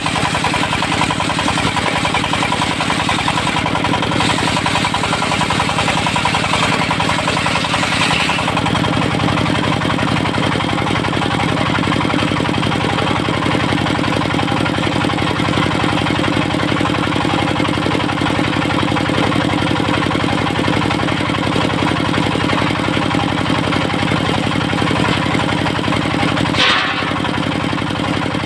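Diesel engine of a mobile circular sawmill running steadily with a rapid even beat, driving the disc saw as it rips teak into beams. The tone shifts about eight seconds in, and there is a short sharp burst near the end.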